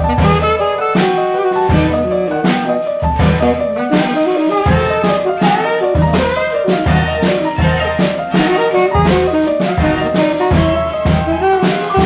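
Live jazz-classical ensemble: a tenor saxophone plays a melodic line over bowed strings, with bass notes and a drum kit keeping time.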